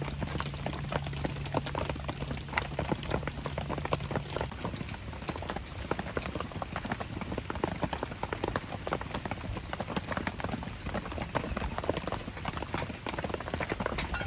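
Rain pattering and a wood campfire crackling: a dense, irregular run of small ticks and pops. A low steady hum underneath stops about four seconds in.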